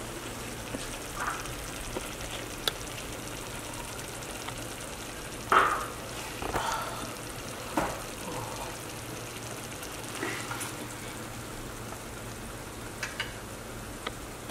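Pot of potato greens stewed in red palm oil sizzling steadily on a gas stove, with a few brief knocks and clinks, the loudest about five and a half seconds in.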